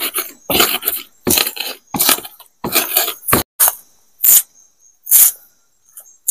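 A stone pestle (ulekan) grinding red chilies on a wooden board: short crushing and scraping strokes about twice a second. After about three and a half seconds they give way to a few separate scrapes of a knife on the board.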